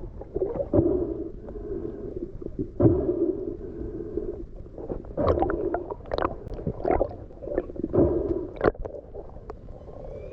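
Muffled underwater gurgling and swishing as water moves around the camera during spearfishing, with repeated swells of sound and sharp clicks and knocks, most of them between about five and nine seconds in.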